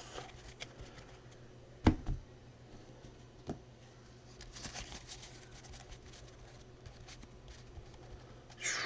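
Trading cards being handled and stacked on a table: faint rustling and shuffling, with a sharp knock about two seconds in and a lighter click a second and a half later.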